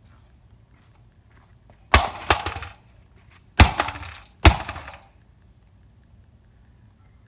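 Three heavy hammer blows on a DirecTV satellite receiver's metal case: one about two seconds in, then two more under a second apart about a second and a half later. Each is followed by a short rattle of loose and breaking parts.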